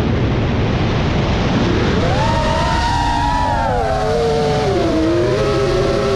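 Brushless motors and propellers of a 5-inch FPV quadcopter (T-Motor Velox motors) whining over a steady rush of air. The whine comes in about two seconds in, sinks slowly in pitch as the throttle eases, then rises again near the end.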